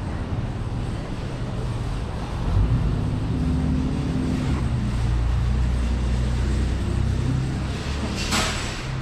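Low, steady rumble of vehicle engines and traffic, strongest in the middle, with one short hiss about eight seconds in.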